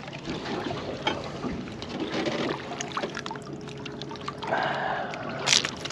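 Seawater trickling and splashing as a cuttlefish is landed on the boat, with small knocks. About four and a half seconds in comes a louder splashy gush, ending in a sharp hit: the cuttlefish squirting water and ink.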